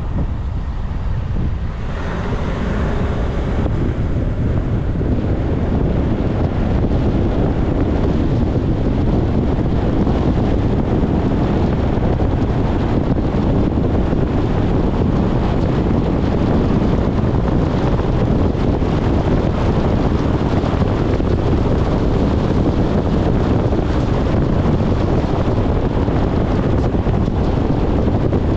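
Steady road and engine rumble of a vehicle driving along, with wind buffeting the microphone; it grows a little louder over the first few seconds, then holds steady.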